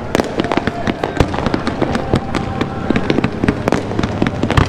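Aerial fireworks display: shells bursting overhead in a dense, irregular run of bangs and crackling, several a second.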